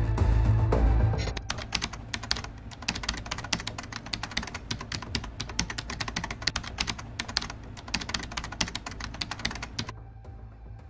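Computer keyboard typing sound effect: rapid, irregular keystroke clicks that stop about a second before the end. It is preceded in the first second by the end of a loud mechanical-sounding music sting.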